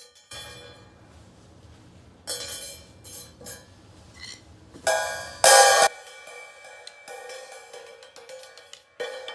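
Cymbal lying flat on the floor, struck and worked with a wooden stick, its overtones ringing on between hits; the two loudest strikes come a little past halfway. After them a fast rattle of small ticks runs over the ringing, from a chain laid on the cymbal, and one more strike comes near the end.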